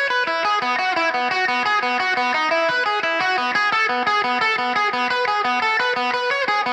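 Background music: a guitar playing a quick run of notes over a repeated low note, at a steady level.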